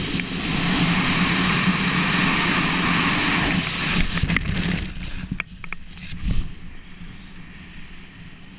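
Wind rushing hard over the jumper's camera mic in BASE-jump freefall. It drops off about four seconds in as the parachute opens, with a few sharp snaps and a loud thump near the opening. Softer wind follows under the open canopy.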